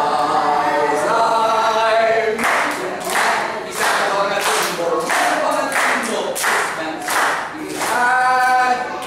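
A group of children singing along with a performer. Through the middle the singing is broken by sharp hand claps in time, about two a second, before a long held sung note near the end.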